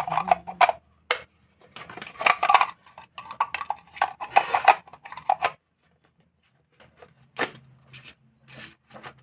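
Home theatre speaker driver being fitted back into its cabinet: irregular clicks, knocks and clatter of the parts being handled. The clatter stops about five and a half seconds in, and a few single sharp clicks follow.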